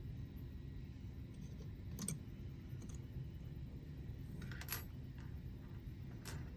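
A few small, sharp clicks of an Allen key and small machine screws on the metal mounting of a stepper motor's circuit board: about two seconds in, a short cluster past the middle, and one near the end, over a steady low hum.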